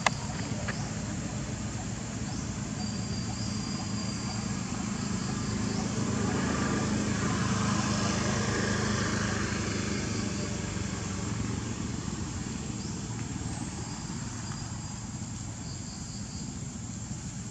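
Motor vehicle engine going by in the background. It grows louder toward the middle, then slowly fades as it passes.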